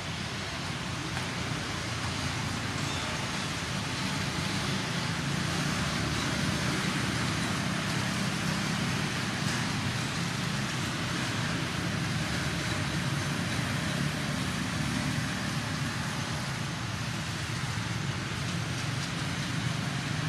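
Steady road traffic noise from motorbikes passing, a continuous engine and tyre rumble that grows a little louder partway through and eases slightly near the end.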